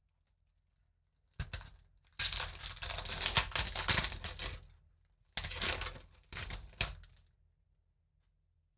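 Foil Magic: The Gathering booster pack wrapper being torn open: a brief crackle, then about two seconds in a long, loud crinkling rip lasting a couple of seconds, followed a little later by a few shorter crinkles of the foil.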